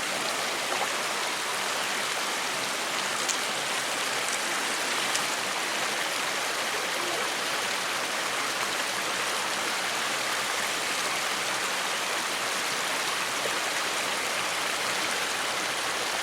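Steady rush of flowing water from the stream channel, an even hiss with no break.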